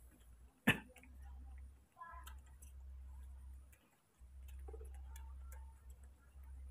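Baby monkey suckling milk from a feeding bottle: faint clicking at the teat, with one sharp click about a second in.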